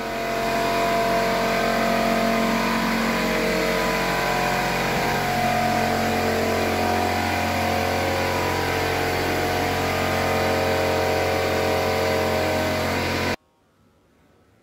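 Electric pancake air compressor running steadily, motor and pump under load filling its tank for a pneumatic nail gun. Its tone changes about five seconds in, and it cuts off suddenly near the end.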